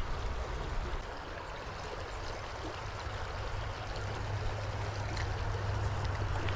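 Small creek running, a steady gentle burble of water.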